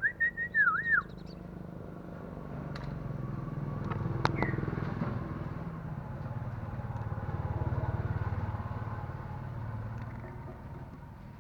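A young iora gives a quick run of loud whistled notes in the first second, the last one dipping and rising again, and a single short chirp about four seconds in. Under it a passing vehicle's low rumble swells, is loudest about two-thirds of the way through, and fades out.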